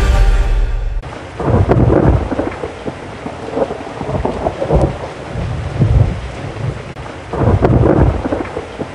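Music cuts off about a second in, giving way to a thunderstorm: thunder rumbling in several swelling rolls over a steady hiss of rain.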